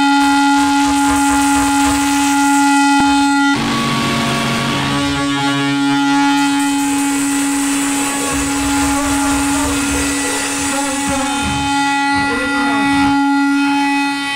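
A band's amplified drone: one buzzy note held steady with many overtones, changing texture about three and a half seconds in, over irregular low rumbling. It works as a droning intro to a rock song.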